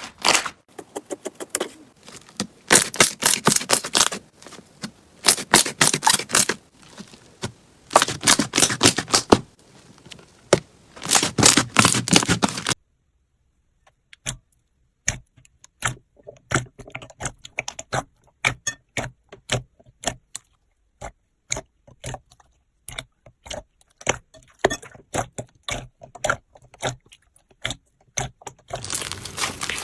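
Slime being squeezed and pressed, giving rapid crackling clicks in bursts of a second or two. About halfway through it stops for a moment, then returns as sparser, softer clicks and pops.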